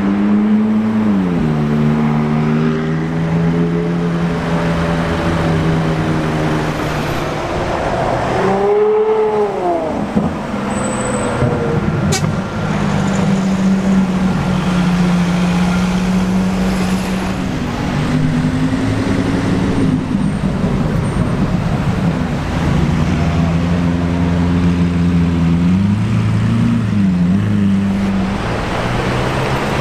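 Sports car engines running and revving, their pitch holding steady for stretches and rising and falling several times, with a quick rev up and back down about nine seconds in.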